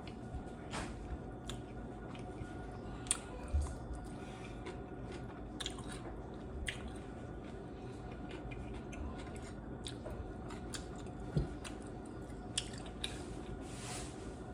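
Close-up eating sounds of a person biting into and chewing beef tacos and tostadas: wet squishy chewing with many short sharp clicks and a few louder knocks, over a faint steady hum.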